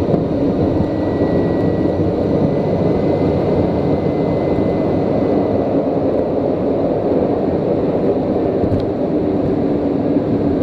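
Steady cockpit noise of a TBM 850 single-engine turboprop rolling out on the runway after landing, with a faint thin high whine over it for the first several seconds.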